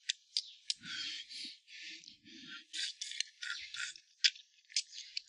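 Close-up eating sounds from a hotpot meal: wet chewing and slurping, broken by a string of sharp little clicks.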